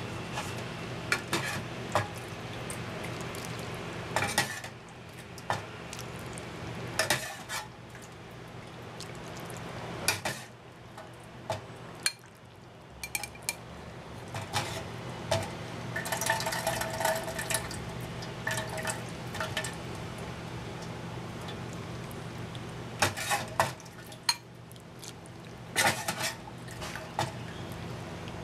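A metal ladle clinking and scraping against a metal pot and a ceramic bowl as soup is ladled out, in many short knocks, over a steady low hum.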